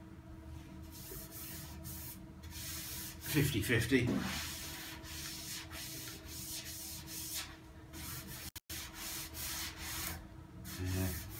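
Gloved hands rubbing along the steel front wing and A panel of a classic Mini in a series of short strokes, feeling the fit of the newly welded panel.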